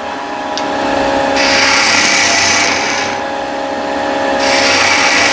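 Vicmarc VL300 wood lathe running with a steady hum while a turning tool cuts into the spinning wooden stem blank, cleaning up the corners: two hissing cuts, one about a second in lasting nearly two seconds and another starting near the end.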